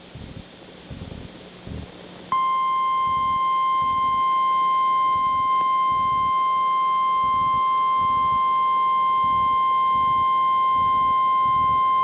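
NOAA Weather Radio 1050 Hz warning alarm tone: one loud, steady, unbroken tone that starts abruptly about two seconds in and holds for about ten seconds. It is the alert signal that precedes a National Weather Service warning broadcast, here a tornado warning.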